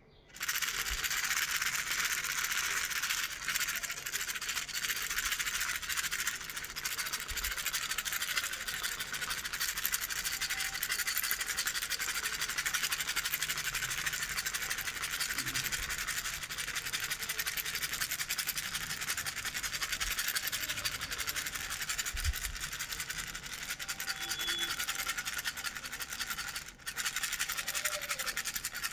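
Owl baby rattle shaken continuously: a dense, fast rattling hiss of small beads, broken off briefly about 27 seconds in before it resumes.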